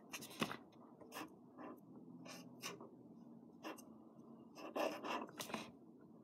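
A felt-tip marker writing on paper: short, irregular scratchy strokes, faint, with a quicker run of louder strokes near the end.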